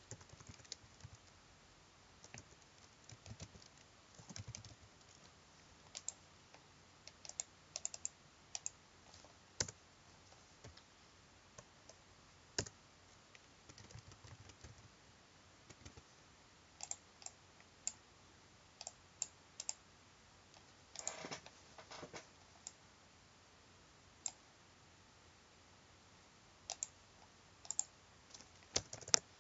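Computer keyboard keys tapped in short, irregular runs of faint clicks, with a denser flurry about two-thirds of the way through.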